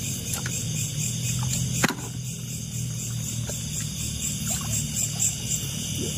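Night insects, crickets, chirping in a steady, pulsing high-pitched chorus over a steady low hum, with a few faint clicks.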